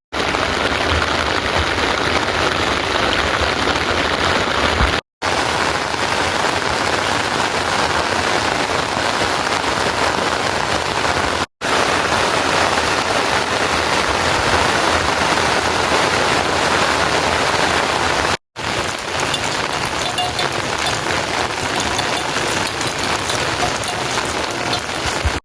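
Steady, heavy rain falling: a dense, even hiss that cuts out for an instant three times.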